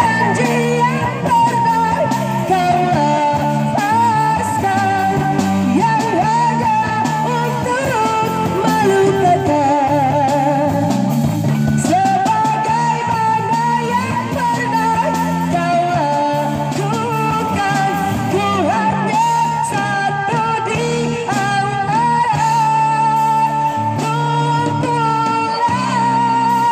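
A woman singing live into a microphone through an amplifier, with long held notes and vibrato, backed by an electric guitar in a small busking band playing rock-pop.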